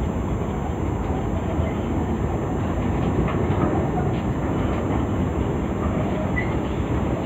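Container wagons of a freight train rolling past, a steady low rumble of wheels on rails with a few faint clicks.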